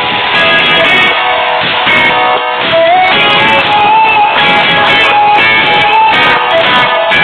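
Background music of strummed guitar, with a lead melody that slides up about halfway through and holds a wavering note.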